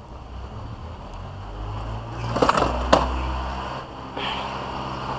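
Bags and tools being shifted about in a car boot: rustling and scraping, with two sharp knocks about two and a half and three seconds in, over a low steady rumble.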